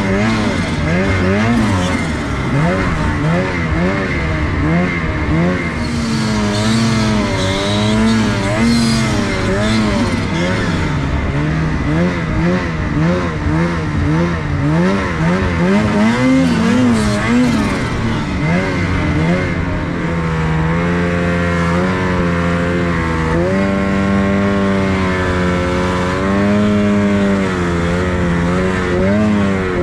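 Snowmobile engine under way, its pitch rising and falling as the throttle is worked, then holding steadier for about the last ten seconds.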